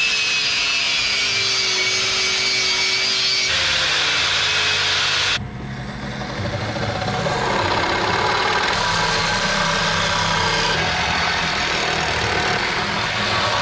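Angle grinder running against the aluminium radiator, grinding paint off before welding, with a steady whine. About five seconds in it gives way to a cordless reciprocating saw cutting aluminium, which runs on to the end.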